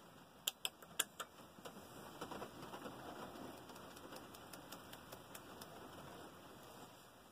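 A steel cartridge case clicking sharply against a small scale pan a few times in the first second or so, followed by lighter ticks and a faint patter as spherical powder is emptied from the case into the pan.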